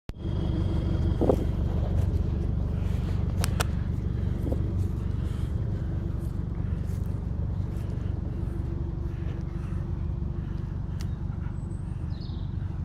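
Nissan Terrano's engine running steadily at an even speed, with a few clicks and knocks.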